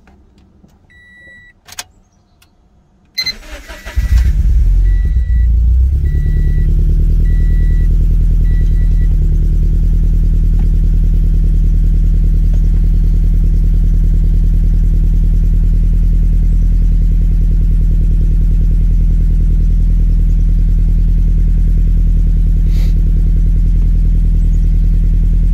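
A 2013 Scion FR-S's flat-four is cranked briefly and catches about four seconds in, flares up, then settles into a steady idle, heard from inside the cabin. A dashboard chime beeps repeatedly through the start. This is a first start after the fuel lines were opened to fit a flex fuel sensor, with the fuel pump primed a couple of times beforehand.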